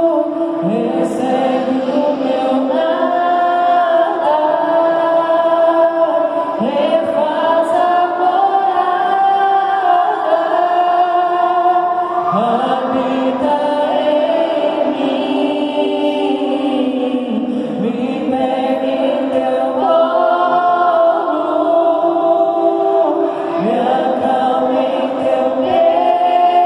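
Live Catholic worship song sung by a small group of mixed male and female voices in harmony, with acoustic guitar and keyboard accompaniment; each new phrase slides in about every six seconds.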